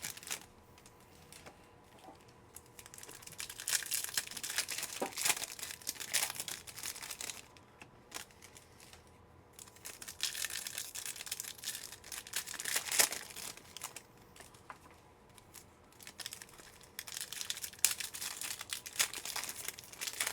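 Foil trading-card pack wrappers being torn open and crinkled by hand, in several bouts a few seconds long with quieter pauses between them.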